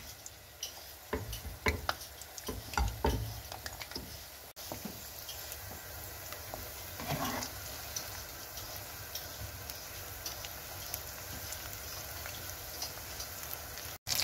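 Spinach and chicken rolls deep-frying in hot oil in a kadhai: a steady sizzle, with scattered pops and a few dull knocks in the first few seconds.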